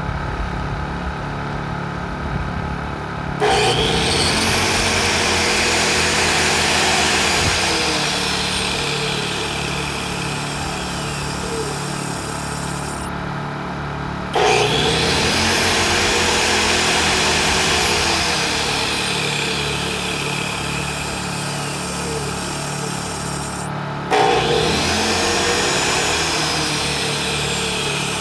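Honda EU2000i and Kipor IG2000P inverter generators running in parallel with eco throttle off, under load from a corded power tool. The tool is switched on three times, about three, fourteen and twenty-four seconds in, and runs for roughly ten seconds each time with a whine that rises and then falls.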